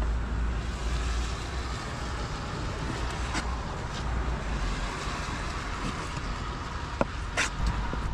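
A cleaver knocks sharply a few times on a wooden cutting board as raw pork is sliced, over a steady low outdoor rumble.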